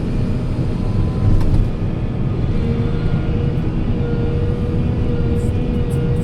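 Heavy construction machine engine running: a steady, loud low rumble, with a steady whine coming in about two and a half seconds in.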